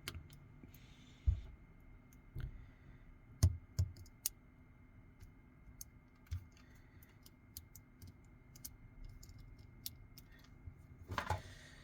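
Scattered small clicks and light taps of a precision screwdriver and tweezers on a phone's internal parts as screws are driven back in, with a few louder knocks in the first few seconds.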